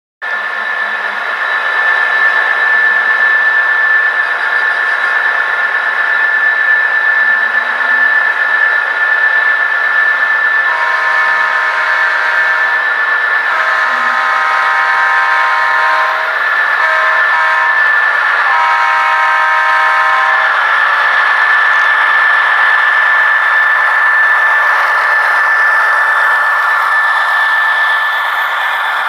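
Sound-equipped model diesel locomotive's horn sounding two long blasts, a short one and a final long one, the grade-crossing signal, played through its small onboard speaker. Under it runs a steady high-pitched whine and hiss.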